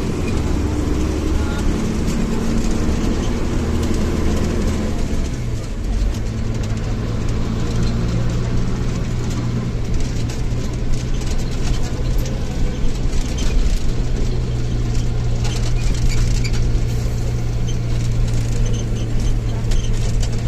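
Bus engine running with a steady drone, its pitch stepping up about five to six seconds in.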